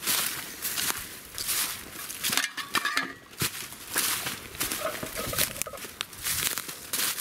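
Footsteps crunching through dry dead leaves and twigs, an uneven step every half second to a second.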